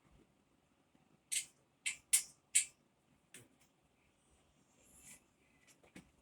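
Four short, hissy scrapes about half a second apart, then a few light clicks: a hand tool being turned on a flat-pack desk's bolts to loosen them.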